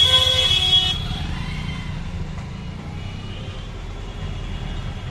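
A vehicle horn honks for about a second at the start, then the steady hum of engines and road traffic from a busy street.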